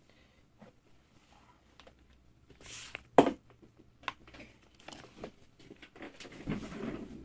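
Handling noise from a person moving at a desk: clothing rustling and scattered small clicks and knocks, with one sharp click about three seconds in and a longer rustle near the end.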